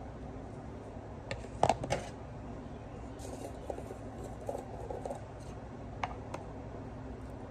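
A few sharp clicks and knocks about two seconds in, then soft scraping and a couple of clicks as a plastic screw lid is twisted off a jar of Nutella.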